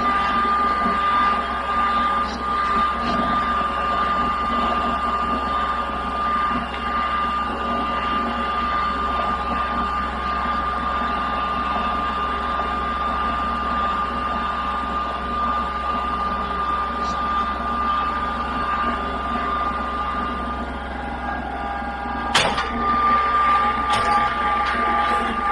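A machine running steadily with a constant high whine over a hum. It eases briefly near the end, then a sharp knock, and the whine picks up again.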